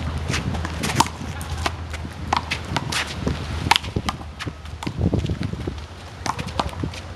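Handball rally: the rubber ball smacks sharply and irregularly off hands and the wall, with shoes scuffing on the court and wind rumbling on the microphone.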